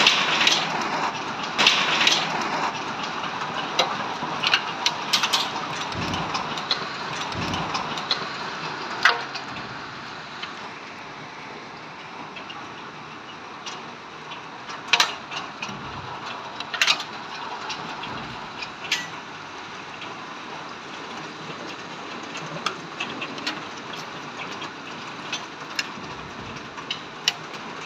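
Hailstorm: a steady hiss of falling hail and rain, with scattered sharp cracks of hailstones striking hard surfaces. It is heaviest in the first eight or nine seconds, then eases a little.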